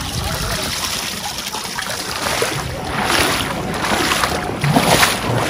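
Water pouring and splashing into shallow river water, with wind noise on the microphone. Louder splashes come from about three seconds in.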